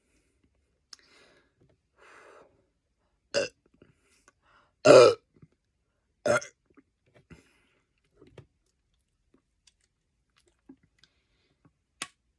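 A man belching up gas from a chugged Coke: three belches, the one about five seconds in the loudest and longest. A sharp click near the end.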